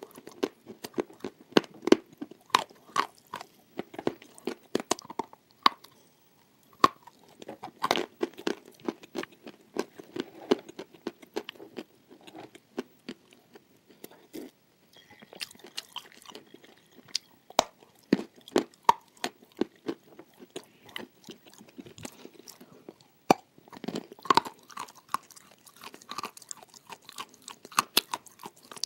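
Close-miked chewing and crunching of cookies, with many irregular crisp crunches over wet chewing. About halfway through the crunching eases off for a sip from a mug.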